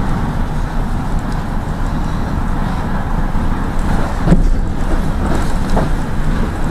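Steady engine and road rumble heard from inside a moving route minibus (marshrutka), with a short knock a little over four seconds in.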